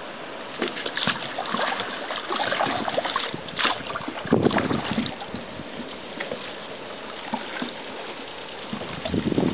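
Paddle strokes splashing in the water beside a small paddled boat, in irregular splashes that are loudest about four to five seconds in, then quieter.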